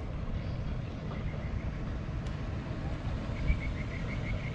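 Wind rumbling on the microphone over open water. About three seconds in there is a short run of faint, quick high ticks.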